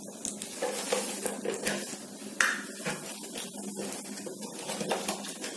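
Mustard seeds spluttering in hot oil in a pressure cooker, with irregular sharp pops over a steady sizzle and one louder pop about two and a half seconds in. This is the tempering stage: the oil is hot enough for the seeds to burst.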